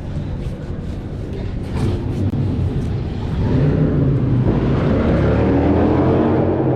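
Motor vehicle traffic: a low engine and road rumble that grows louder from about halfway through, with a few short knocks early on.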